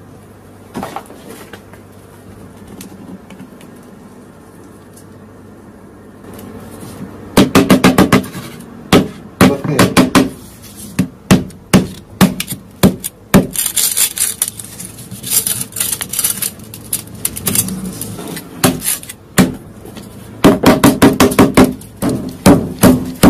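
Quiet at first, then from about seven seconds in a long run of hard, sharp blows in rapid clusters of several strikes a second: a smartphone being struck on a wooden cutting board.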